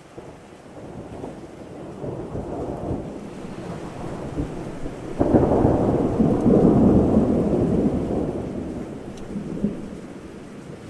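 Thunder in a rain storm: a rumble builds, then a sharp crack about five seconds in sets off a loud rolling peal that slowly dies away, over steady rain.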